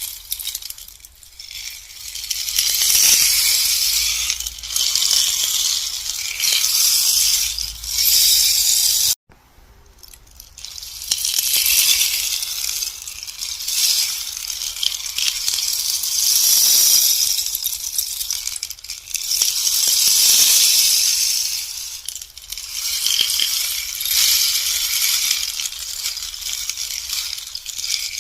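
Bamboo rainstick being tilted over and over, its pebbles trickling down inside with a high rushing rattle like falling rain. The rattle swells and fades every few seconds, breaks off abruptly about nine seconds in, then builds again.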